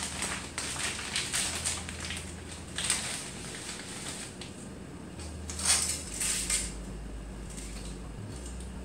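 Crinkling plastic spaghetti package handled and rustled as dry spaghetti is pulled out, with the dry strands clattering into a pan of water. Sharper crackles stand out about three and six seconds in.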